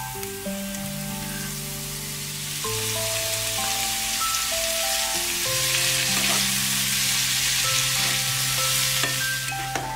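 Grated zucchini and carrot sizzling in hot oil in a frying pan as a spatula stirs them. The sizzle builds after a couple of seconds, is loudest in the second half and eases near the end. Background music with held notes plays throughout.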